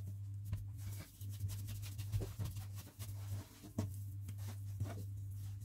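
Quiet handling sounds as laminated hopia dough is stretched and pressed by hand on a countertop: a few faint soft taps and rubs over a steady low hum.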